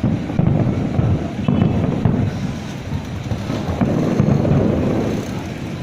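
Fireworks going off in quick succession: a dense run of overlapping low booms that starts abruptly and rises and falls in loudness.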